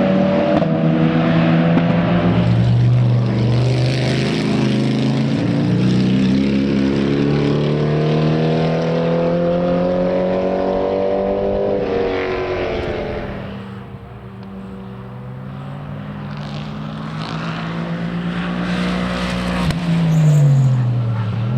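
Racing car engines running hard on track. One car accelerates through the gears with its pitch rising, then fades away about fourteen seconds in. Another comes in, loudest about twenty seconds in, its pitch dropping sharply as it goes by.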